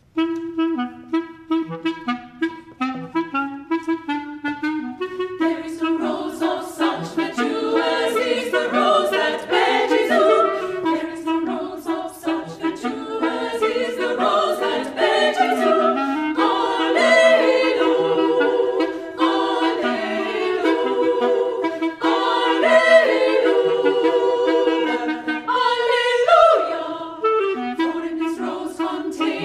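Women's choir singing with a clarinet. It opens with short repeated notes and fills out into fuller harmony about five seconds in.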